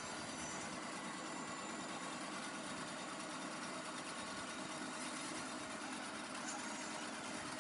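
An engine running steadily at an even pitch, with no changes in speed or load.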